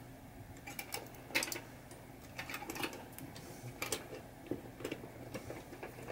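Irregular light clicks and taps of Williams pop bumper coil assemblies and their metal brackets being handled and set into place under a pinball playfield, the sharpest tap about a second and a half in.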